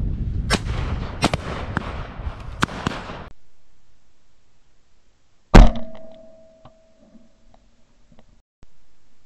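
Shotgun fire: several shots go off over a steady rushing noise, which cuts off abruptly. About two seconds later comes a single very loud, close shotgun blast, followed by a ringing tone that fades over about two seconds and a few faint clicks.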